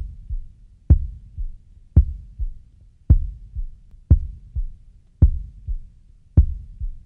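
Heartbeat sound effect: paired thumps, a strong beat followed by a softer one, repeating about once a second and slowing slightly toward the end.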